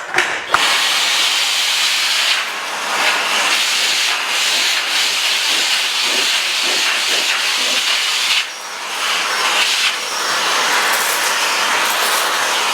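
Miele Classic C1 canister vacuum cleaner switched on about half a second in and running, its nozzle sucking coffee grains off sofa upholstery. It makes a steady hiss of rushing air that dips briefly twice.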